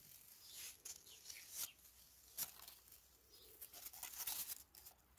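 Faint rustling of strawberry leaves as ripe strawberries are picked by hand, with a few brief snaps as berries are pulled off their stems.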